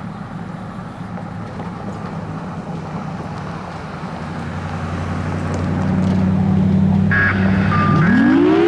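Federal Signal Thunderbolt 1000T mechanical warning siren starting up: a steady low hum builds over a few seconds, then near the end its tone begins to rise as the siren winds up.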